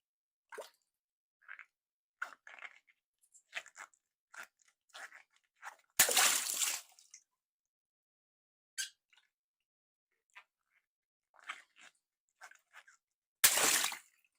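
Water balloons popped twice, each a sharp pop followed at once by a splash of water. In between, small scattered crinkles and clicks of the rubber being handled.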